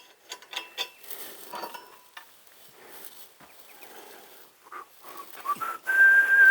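A few light clicks and taps, then whistling near the end: a few short notes, then one long, steady, high note.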